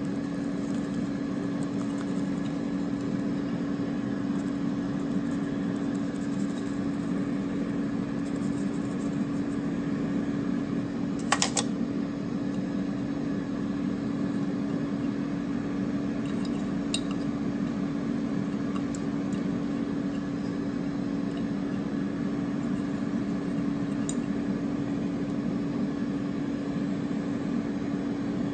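Countertop air fryer running, its fan giving a steady low hum, with one sharp clink about eleven seconds in.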